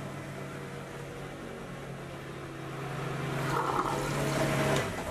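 Electric sea-water marine toilet flushing: its pump runs with a steady hum while water rushes through the bowl. The rushing grows louder about three seconds in, and both stop abruptly near the end as the button is released.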